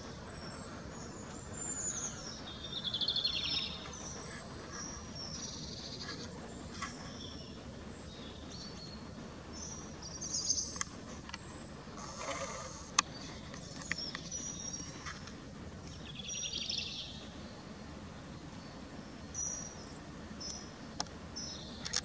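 Outdoor ambience: scattered bird chirps and short warbling calls over steady background noise, with one sharp click about 13 seconds in.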